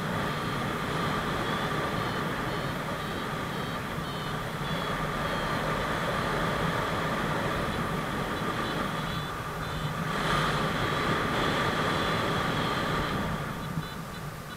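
Airflow rushing over the microphone in paraglider flight, gusting louder about ten seconds in. A paragliding variometer beeps high and rapidly over it.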